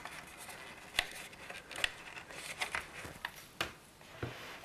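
Computer cable connectors and ribbon cable being handled and plugged in: scattered light clicks and rustling, the sharpest click about a second in.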